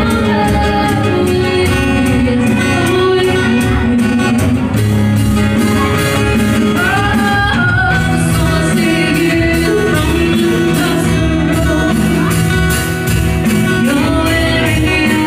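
Acoustic band playing a song: a voice singing over plucked guitar with low sustained notes and a steady beat.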